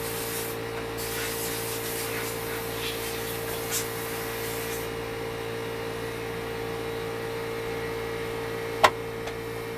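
Hands working the metal lift-mast parts and threaded rod of a Tonka toy forklift. There is rubbing and scraping for the first five seconds, then a single sharp click near the end, all over a steady hum.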